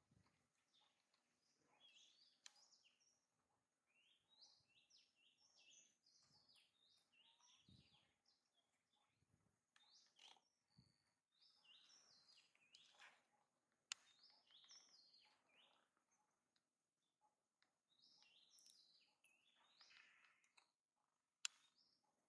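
Faint birds chirping in short, quick clusters of high notes, over otherwise near-silent ambience, with a couple of sharp clicks.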